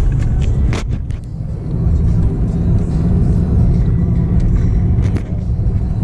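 Car cabin noise while driving: a steady low rumble of engine and tyres on the road, with a few short clicks or knocks about a second in and again near the end.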